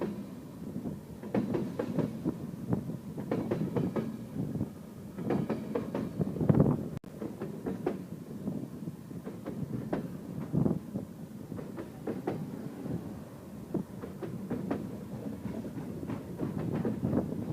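CN Rail train rolling past, a steady low rumble with repeated clicks from the wheels crossing rail joints. The sound cuts out for an instant about seven seconds in.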